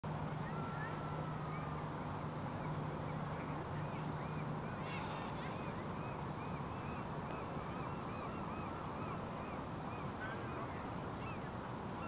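A flock of waterbirds on a lake calling, many short rise-and-fall calls overlapping without pause. A steady low hum runs underneath and stops about four and a half seconds in.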